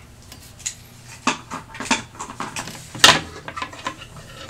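Clicks and knocks of a small plastic-and-metal tripod with a phone clamp being folded and handled. The sharpest knock comes about three seconds in.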